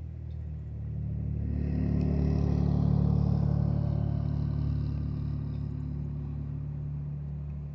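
A motor vehicle's engine running, growing louder to a peak about three seconds in and then slowly fading.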